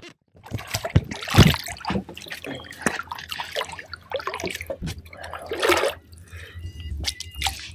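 Water splashing and trickling in irregular bursts as a big redfish is held in the water at the boat's side for release, the loudest splash about a second and a half in.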